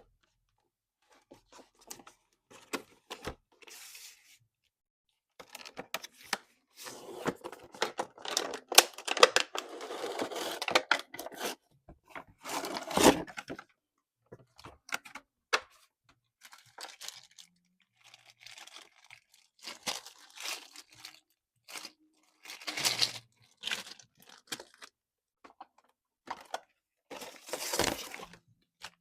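Toy packaging being torn open and handled: tearing and crinkling in irregular bursts with scattered clicks, the longest stretch of tearing lasting a few seconds about a third of the way in.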